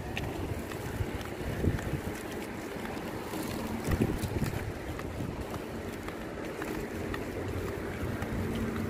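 Wind rumbling on the microphone of a handheld camera carried along a street: a steady low rumble with a few soft thumps, near two seconds in and again about four seconds in.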